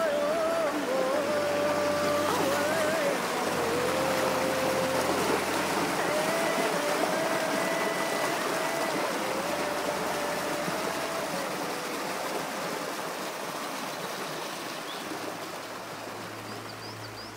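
Rushing river water, a steady hiss, with background music of slow held notes laid over it. The whole sound fades gradually over the last few seconds.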